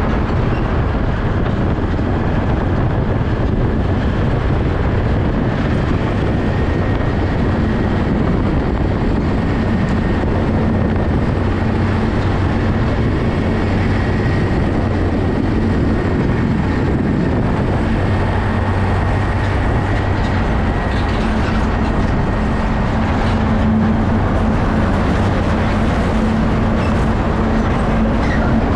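Container semi-truck driving at road speed: a steady diesel engine hum under continuous tyre and road noise.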